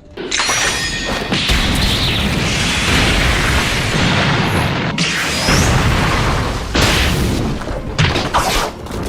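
Dragon Ball anime fight sound effects: a continuous barrage of booms and crashes with a heavy rumble, briefly broken twice near the middle, with a short rising whistle among them.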